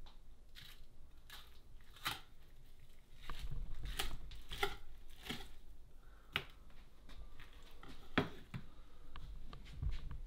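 Knife cutting and filleting a panfish on a wooden cutting board: a run of short, irregular cutting strokes, scrapes and taps of the blade on the board.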